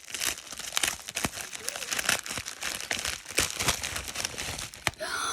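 Packaging being opened by hand: crinkling and tearing of paper and plastic in a dense run of quick crackles and clicks.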